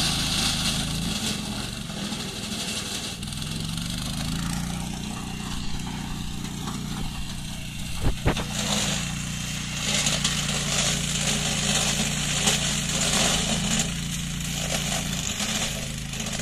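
Engine of an OREC BM91 walk-behind harvester running steadily under load while it cuts elephant grass, with a hissing rush on top that grows stronger in the second half. One brief sharp knock about halfway through.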